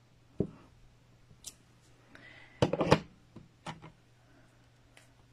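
Clear acrylic stamp block knocking and clacking on the table as rubber flower stamps are pressed onto paper and the block is handled and set down. There is a single thump about half a second in, a cluster of sharp clacks a little before the middle, then a few lighter clicks.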